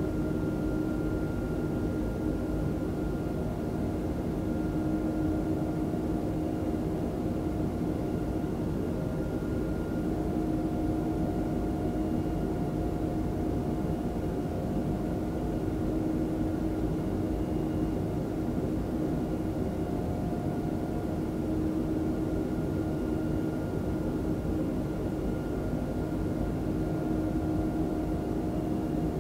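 Steady jet engine and airflow noise of an Airbus A320 heard inside the cabin: a constant rush with a steady, unchanging hum.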